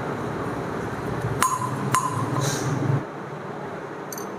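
Two light metallic clinks with a brief ring, about half a second apart, as new engine valves are handled and slid into a motorcycle cylinder head.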